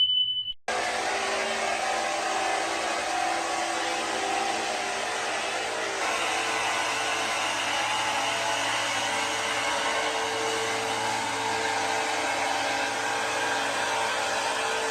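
A motor-driven machine running steadily with an even, dense whir and a faint constant hum. It starts abruptly just under a second in.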